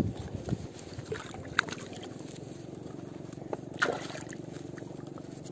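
Water splashing in the shallows as a caught fish thrashes, loudest just before four seconds in, with a few sharp handling clicks. A steady low hum runs under the second half.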